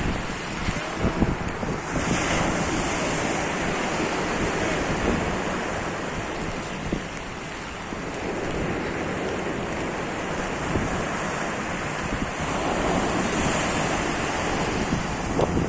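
Sea waves breaking on the shore in a steady wash, swelling about two seconds in and again near the end, with wind buffeting the microphone.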